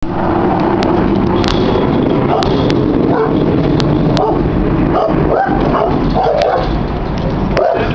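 Several dogs barking aggressively and repeatedly, over a constant low rumble.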